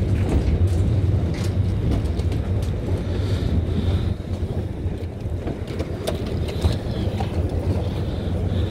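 People walking off a ferry dock pulling rolling suitcases, the wheels giving scattered light clicks over a steady low rumble.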